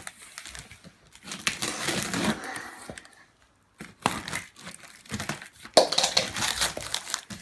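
Plastic wrapping and packaging being handled, cut and pulled, in irregular bursts of crinkling with a short pause about halfway, louder again near the end.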